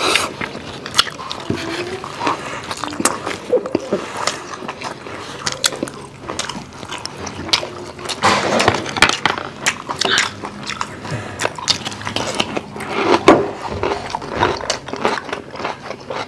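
Several people chewing and biting food at close range, crunching raw vegetables such as bell pepper, with many short sharp clicks throughout.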